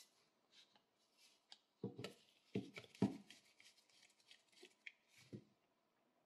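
Quiet handling noise from antique brass field binoculars held in nitrile-gloved hands: light rubbing and rustling, with a few soft knocks of the brass body about two to three seconds in and one more near the end.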